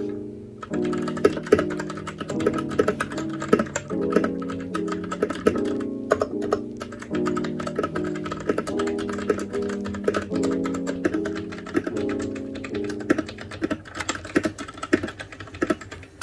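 Fast, continuous typing on a Royal Kludge RK61 mechanical keyboard, dense key clacks over background music.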